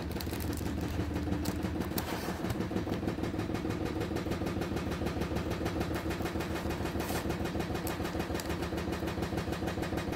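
Washing machine running, a steady low hum with an even pulsing rhythm and a few faint clicks over it.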